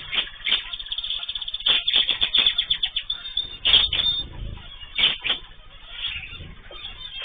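Ornamental cage birds chirping and calling: a quick run of short chirps about two seconds in, then a few louder separate calls.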